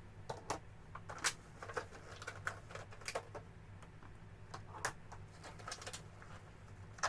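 Plastic figure-kit parts and their plastic packaging tray being handled, giving irregular light clicks and taps. A faint steady low hum runs underneath.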